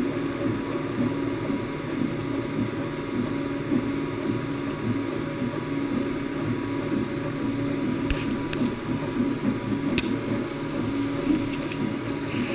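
3D printer running: stepper motors whirring with shifting tones as the axes move, over a steady fan hum, with a few faint clicks.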